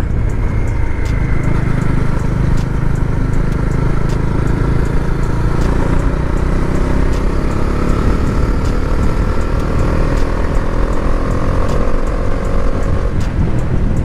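Bajaj Dominar 400's single-cylinder engine running under way, its note rising slowly as the bike pulls and gains speed, then falling away about a second before the end. A heavy low rumble runs underneath.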